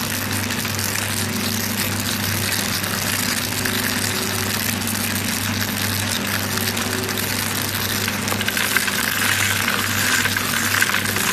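Double-shaft shredder running, its motor humming steadily under the noise of the turning cutter shafts chewing up foam scraps. About eight seconds in, a large foam block reaches the blades and the cutting gets louder, with many small clicks.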